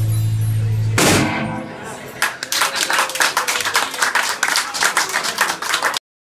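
Rock band's final held chord of bass and electric guitar, ended about a second in by a last crash of drums and cymbal that rings and fades. Then a small audience claps, the separate claps easy to pick out, with some voices, until the sound cuts off abruptly near the end.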